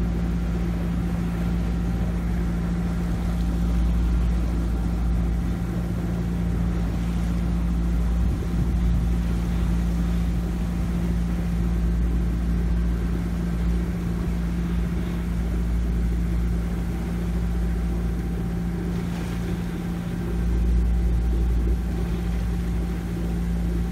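A Macwester Seaforth sailing yacht's engine running steadily under way: a constant even hum over a low rumble.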